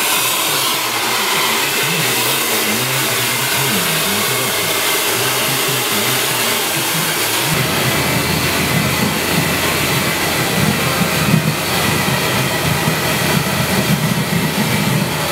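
Handheld hair dryer switched on and blowing steadily, a loud even rush of air and motor noise. A deeper rumble joins in about halfway through.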